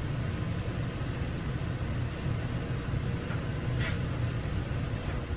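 Steady low rumble of background noise in a quiet room, with a faint brief hiss about two-thirds of the way through.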